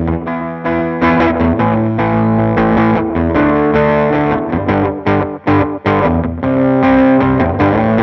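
Electric guitar playing a riff of picked notes, some held, with a few short breaks between notes about five to six seconds in. It is recorded direct through the Blue Mikey Digital's instrument input jack into GarageBand.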